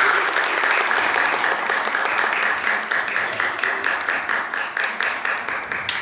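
Spectators clapping in a kendo hall, the applause fading away near the end.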